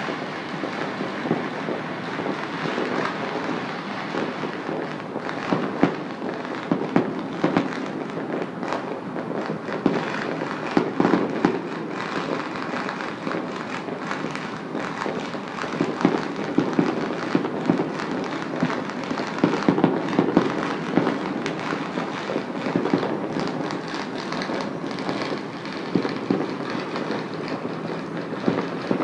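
Fireworks and firecrackers going off all over a city at once: a steady din of many overlapping bangs and crackles, with sharper, louder reports scattered irregularly throughout.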